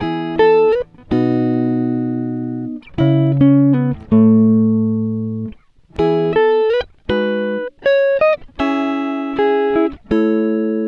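Background music: a plucked-string tune, short notes alternating with longer ringing chords that fade away.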